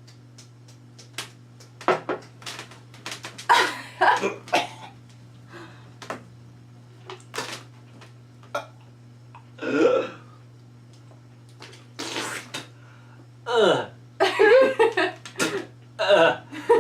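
A person gagging and retching again and again, with coughs and throat-clearing, from forcing down a swig of penalty sauce. The bursts come irregularly, the longest near the end, over a faint steady hum.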